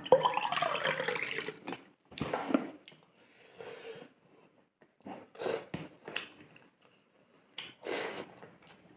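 Wet mouth and hand sounds of eating curry and rice by hand: a loud slurp with falling pitch at the start, then short wet squishes as the fingers knead the saucy fish curry and rice, with smacking at the mouth.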